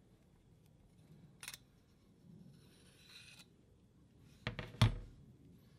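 The metal spiral rod and sleeve of aircraft wire locking pliers being handled. A single click, then a short metal scrape as the knobbed spiral rod slides out of its tubular sleeve, then a quick run of sharp metal clicks ending in a louder knock near the end.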